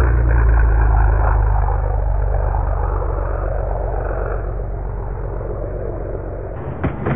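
Low, steady drone of a propeller aircraft's engine, slowly fading. Music with drums cuts in near the end.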